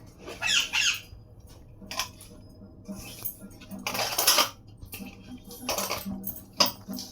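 Metal kitchen utensils clinking and scraping a few separate times, with short high chirps in the first second.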